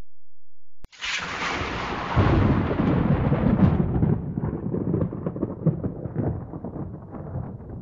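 A sudden loud crash about a second in, fading over a few seconds into a long low rumble with crackling.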